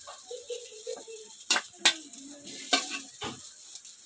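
Metal spoon scraping vermicelli out of a steel kadhai and serving it onto a plate, with four sharp clinks of spoon on metal in the middle and later part.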